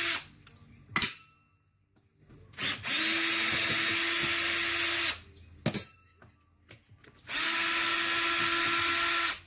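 Cordless drill-driver spinning out bolts in two steady runs of about two seconds each, with short sharp clicks in the pauses between.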